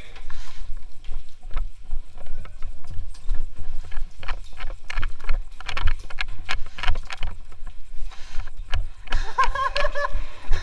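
Irregular footsteps and knocks of gear and clothing against a body-worn camera, over low rumbling handling noise, as the wearer climbs stairs and moves quickly through rooms. A person shouts briefly about nine seconds in.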